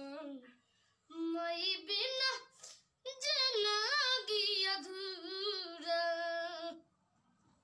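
A young boy singing a song solo without accompaniment, in phrases with long held, wavering notes; the singing stops about seven seconds in.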